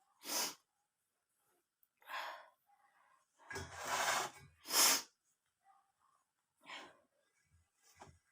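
A person with a head cold and blocked sinuses breathing hard during a steam inhalation over hot water: about six separate noisy breaths and sniffs, the loudest pair about four to five seconds in.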